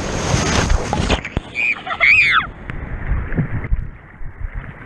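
Breaking surf and water splashing around an inflatable baby bathtub afloat in the waves, picked up by a camera at water level. A little over a second in the sound turns muffled. Around two seconds in, a brief high squeal rises and falls.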